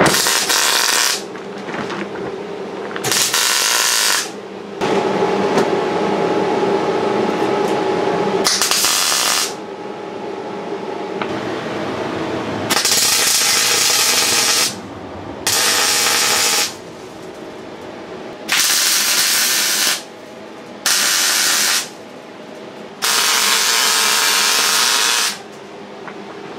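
MIG welder arc crackling as a steel repair panel is welded into a van's wheel arch. The welding comes in about eight runs of one to two seconds each, with short pauses between them.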